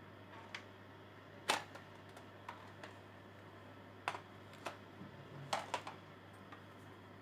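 Irregular sharp clicks and taps, about eight of them, the loudest about a second and a half in and a quick cluster of three past the middle, over a faint low hum.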